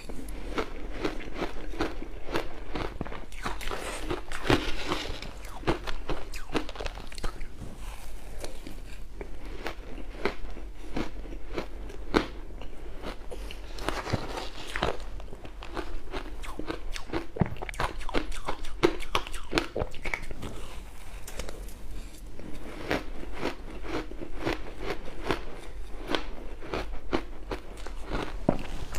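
Close-miked crunching and chewing of crushed ice with passion fruit: dense, irregular sharp crackles and crunches from the mouth, one bite running into the next.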